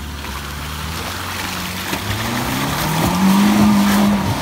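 Off-road 4x4's engine pulling at low revs, then revving up about two seconds in and holding higher and louder under load as the vehicle works over a trail obstacle.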